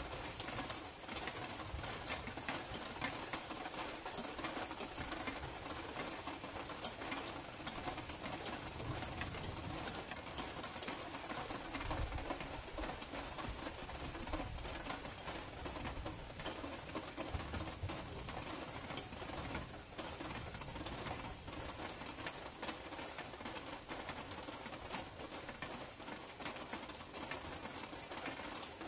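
Steady rain pattering, with a few low rumbles, likely distant thunder, rising and fading now and then.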